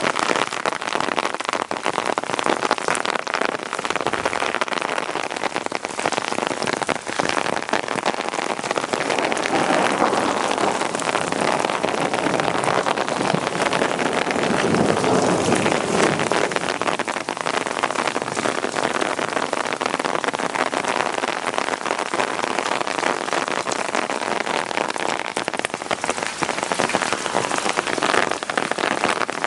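Heavy rain in a thunderstorm: a dense, steady hiss of countless drops hitting surfaces. About halfway through, a low swell builds briefly and fades.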